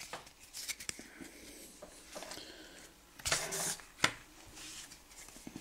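Pokémon trading cards handled by hand: soft rustles and small clicks, with a brief louder swish about three seconds in and a sharp tap just after it.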